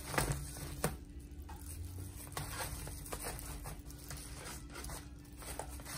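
Plastic-gloved hands handling and placing crisp fried flautas on a tray: irregular light crinkles, rustles and taps, with two sharper clicks in the first second.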